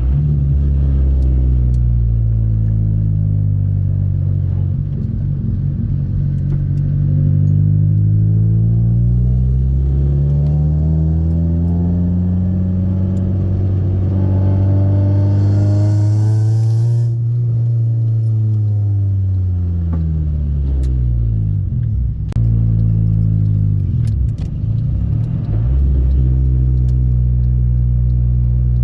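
Honda EK Civic four-cylinder engine with a full aftermarket header-back exhaust, pulling under acceleration. The revs climb slowly to a peak about two-thirds of the way in, with a hiss at the top, then drop sharply at a shift or lift-off. The engine note then dips and rises again several times.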